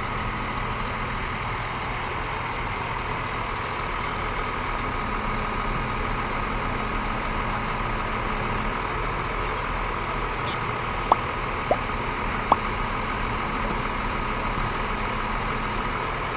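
Large diesel bus engine idling steadily with a constant hum and whine. A little past the middle, three short sharp knocks come within about a second and a half of each other.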